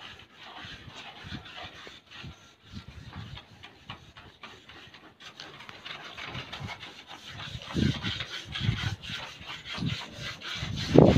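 Irregular scraping and rubbing on a broken-tile mosaic roof terrace as the cracks between the tile pieces are worked for crack filling, growing louder near the end.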